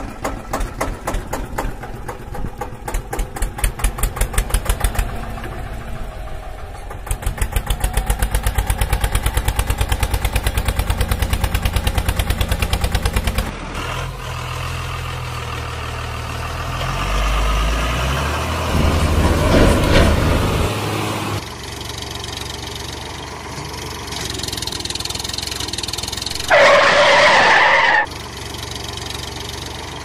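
Tractor engine sounds, chugging with a regular beat that becomes faster and more even several seconds in. This gives way to a lower, steadier engine run that rises for a few seconds in the middle. Near the end, a loud sound lasts about a second and a half.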